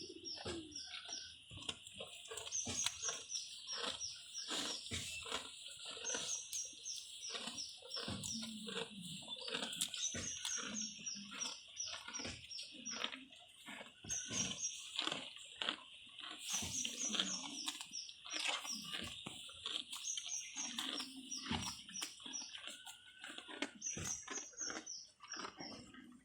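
Water buffalo tearing and chewing grass, a rapid irregular crunching. A bird repeats a short high phrase of several quick notes about every three and a half seconds over a steady high hiss.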